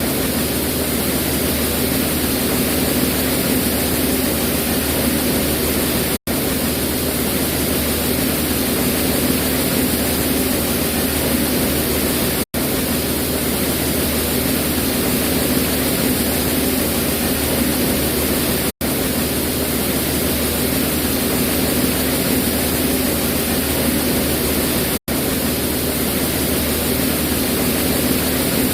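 Brown rice grains pouring in a steady, dense cascade in a rice mill, with a low steady machine hum underneath. The sound cuts out for an instant about every six seconds.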